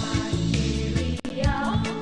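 Background music with a repeating bass line; a wavering melody comes in just after a brief break about halfway through.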